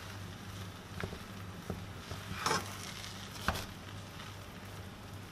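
Metal spoon stirring fried rice in a pot: soft scraping with a few light clicks of the spoon against the pan, over a steady low hum.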